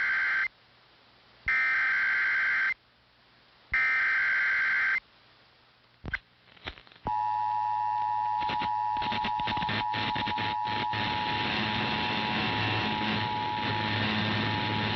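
Emergency Alert System SAME header: three identical bursts of screeching digital data tones, about a second apart, encoding a tornado warning. About seven seconds in, the steady two-tone EAS attention signal begins, sounding over crackling noise.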